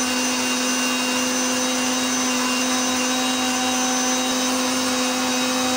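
Electric countertop blender running steadily, a motor whine over a churning noise, blending a peanut milkshake of milk, ice cream and peanuts.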